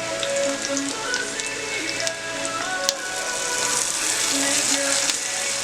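Background music over pork sizzling as it fries in a pan, with scattered crackles and pops.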